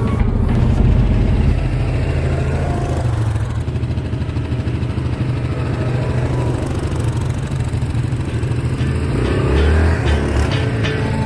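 ATV engine running as the quad is ridden, steady with its pitch shifting a little, a bit louder about nine seconds in.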